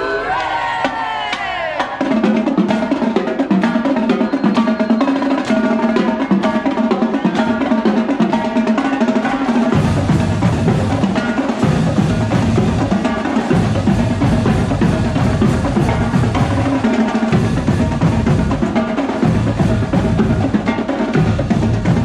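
Marching band drumline playing a cadence: rapid snare drum strokes, with bass drums joining in about halfway through.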